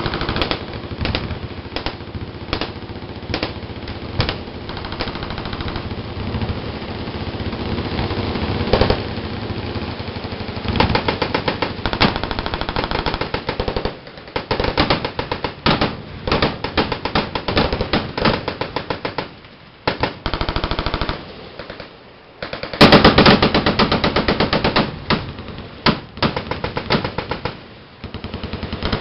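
Machine guns firing long, rapid automatic bursts, several guns overlapping, with short gaps between strings. The loudest burst comes about 23 seconds in.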